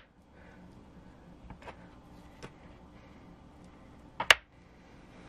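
Light clicks and taps of hands working dates and a knife on a plastic cutting board: a few soft clicks, then a sharp double tap about four seconds in.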